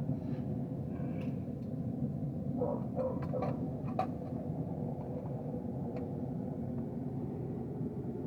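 Backyard copper-melting furnace running with a steady rumble as its flame heats the crucible.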